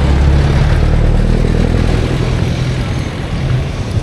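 Street traffic, with a nearby motor vehicle engine running at low revs. It is loudest in the first two seconds, then eases off under the general street noise.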